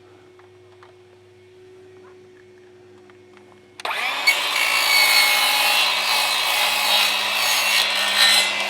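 An electric power tool cuts in abruptly about four seconds in, runs steadily and loudly for about five seconds, then winds down near the end.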